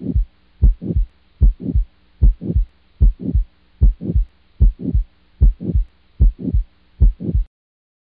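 Recorded heart sounds of aortic stenosis: a steady beat of about 75 a minute, each beat a short first sound followed closely by a longer murmur that swells and fades. It cuts off suddenly about seven and a half seconds in.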